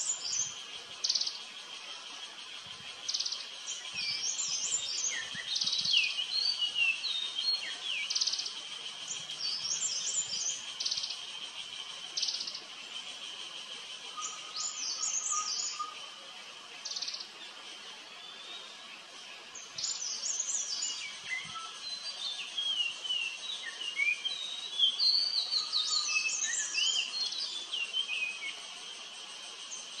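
Birds chirping and calling, with many short chirps and gliding whistled notes and a quieter spell about halfway through, over a steady cicada drone.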